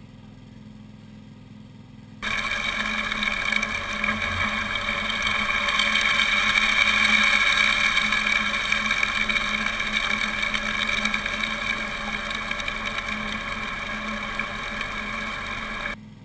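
A highbanker running: water gushes through its PVC spray bar into the hopper over the steady hum of its small engine-driven water pump. The sound starts suddenly about two seconds in and cuts off just before the end.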